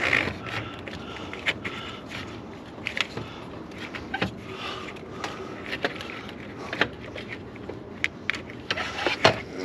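Irregular metal clinks, knocks and scrapes of hand tools and engine parts being handled in a pickup's engine bay during reassembly after a water pump replacement.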